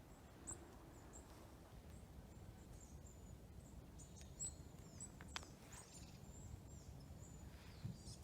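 Faint, high, thin chirps of small forest birds scattered over a near-silent background, with a faint click or two.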